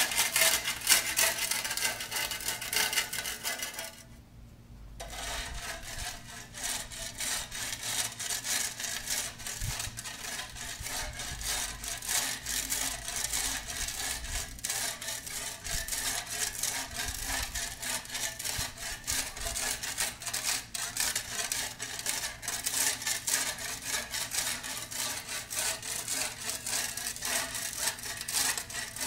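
Steel flat shovel scraping and chopping along the edge of a concrete driveway to cut back the grass edge: a continuous run of rasping scrapes, stroke after stroke. It breaks off briefly about four seconds in, then goes on fainter.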